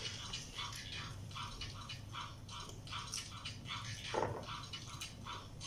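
Chewing of pizza, a wet mouth sound repeating about four times a second, over a low steady hum.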